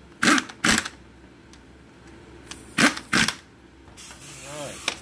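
Cordless drill-driver run in short bursts on the bolts of a transfer case shift plate, snugging them down: two quick bursts just after the start, then two more about 3 seconds in.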